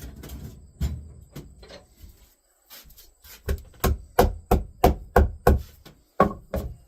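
A hammer tapping down staples that would not seat fully in the end of a wooden dolly frame. There is one blow about a second in, then a quick run of about nine strikes near the end, about three a second.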